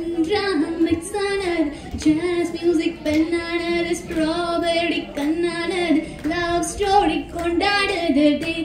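A woman singing solo into a handheld microphone, with wavering held notes and short breaks between phrases.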